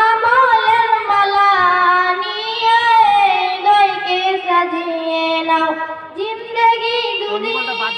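A girl sings a Bengali Islamic gojol unaccompanied into a microphone. She draws out long, wavering notes that glide up and down within the line.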